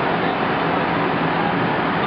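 Fire engines' engines and pumps running at a working fire, a loud, unbroken mechanical din with a faint steady hum.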